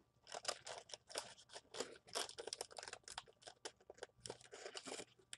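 Faint, quick, irregular crunching and crackling of crispy KFC fried chicken pieces being chewed and picked out of their paper box.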